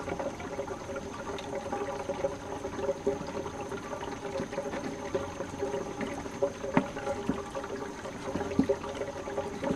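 Water running steadily, with a few sharp clicks or knocks about seven and eight and a half seconds in.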